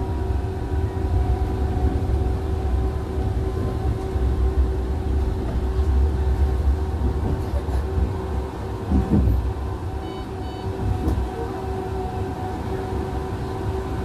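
Electric tram running along street track, heard from inside the car: a steady low rumble of wheels on rail with a steady hum over it. A brief thump comes about nine seconds in, and two short high beeps follow just after.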